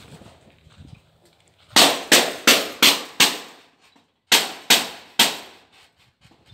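Eight loud, sharp bangs in two quick runs, five and then three, about three a second.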